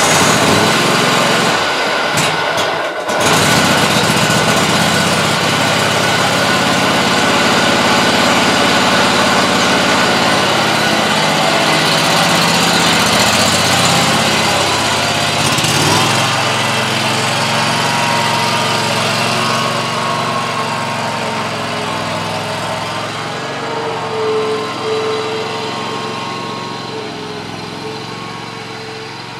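Scag zero-turn mower engine running steadily after a cold start. Its note shifts about halfway through, and the sound fades gradually over the last several seconds.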